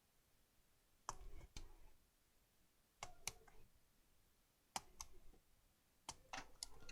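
Sharp plastic clicks and snaps of a laptop keyboard's retaining clips being pried loose, coming in small groups every second or two with quiet between.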